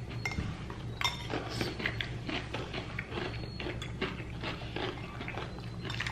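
Eating a salad close to the microphone: crunchy chewing with many short, irregular clicks of cutlery against a plate.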